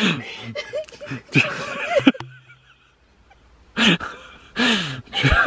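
People laughing in short voiced bursts, with bits of indistinct voice and a brief lull in the middle.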